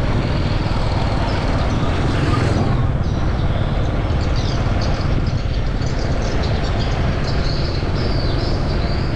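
A vehicle running with a steady low rumble, and faint high-pitched squeaks in the second half.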